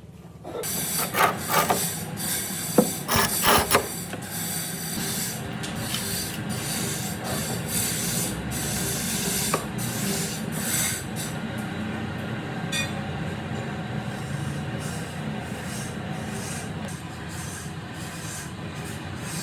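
Wood being abraded, a steady scraping with a few sharp knocks in the first few seconds.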